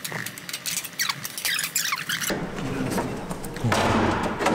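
A camp trailer's slide-out kitchen unit being pushed back into its compartment on metal slide rails: a run of clicks and short falling squeaks, then from about two seconds in a rumbling slide that grows loudest near the end.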